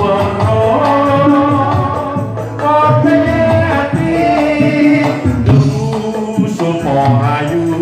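A man singing through a handheld microphone over loud amplified backing music.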